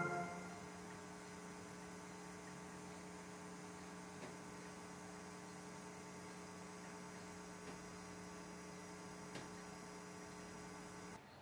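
Steady electrical mains hum, a low buzz with a ladder of overtones, under a silent stretch of TV audio. There are a few faint ticks, and the tail of music fades out at the very start.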